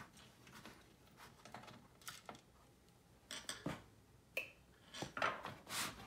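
Light, scattered clicks and taps of a small screwdriver taking screws out of a laptop's plastic bottom case, with hands knocking and shifting the case, and a brief metallic clink about four seconds in.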